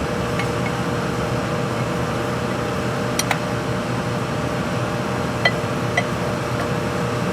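Steady mechanical hum, with a few light sharp clicks, the loudest about three seconds in.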